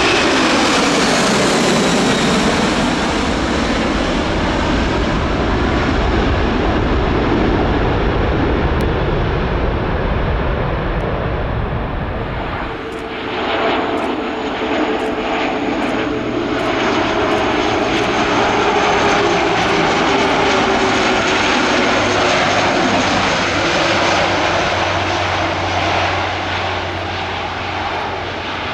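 Boeing 747-400F four-engine jet freighter on take-off, its engine noise falling in pitch as it pulls away. About thirteen seconds in, this gives way abruptly to an Alenia C-27J Spartan twin-turboprop on landing: a steady propeller hum with held droning tones.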